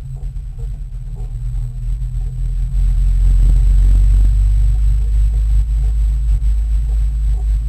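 Cabin rumble inside a Peugeot 306 RS race car driving slowly over dirt, with the engine running and a heavy low drone. It grows louder about three seconds in.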